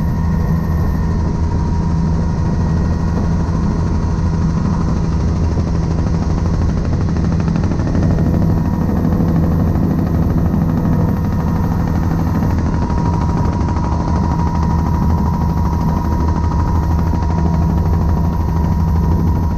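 Helicopter in flight, heard from on board: the main rotor's fast, steady chop over the engine noise, unchanging throughout.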